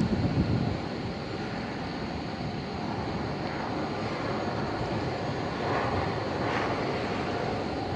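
Wind buffeting the microphone for the first second, then a steady hiss of distant airport noise, with faint swells about three and a half and six seconds in.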